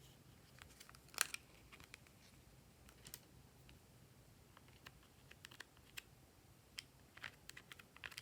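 Glossy slime being mixed: faint, irregular sticky clicks and pops, the loudest about a second in and several more close together near the end.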